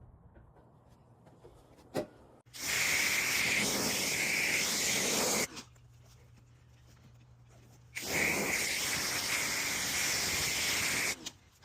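Pressure washer spray gun fired in two bursts of about three seconds each, a steady hiss of spraying water. A single click comes shortly before the first burst.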